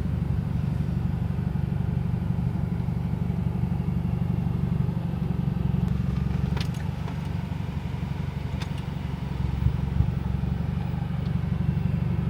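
Car driving along: a steady low rumble of engine and road noise, with a few faint clicks about halfway through.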